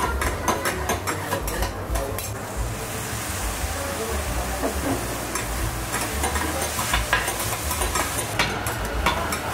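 Chicken and vegetables sizzling on a teppanyaki griddle as they are stirred, with many sharp clicks and scrapes of a spatula on the hot plate. The sizzle grows brighter for a couple of seconds around the middle.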